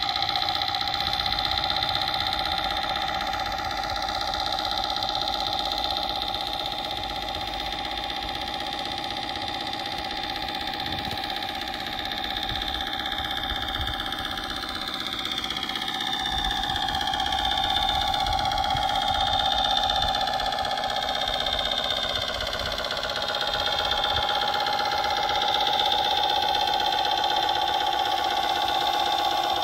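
Tamiya Knight Hauler RC truck, rebuilt as a Mack Titan, driving while hauling a heavy wheel loader on its lowboy trailer. It gives a steady engine-like drone with several whining tones that drift slowly up and down in pitch, louder about two-thirds of the way through.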